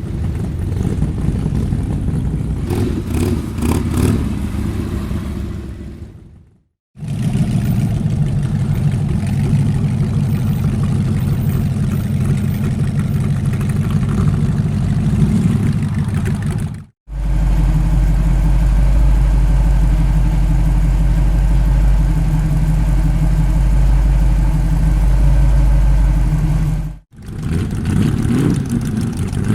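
Antique car engine running in several separate recordings, each cut off abruptly by a brief silence, three cuts in all. The longest middle stretch is a very steady run with a deep low hum.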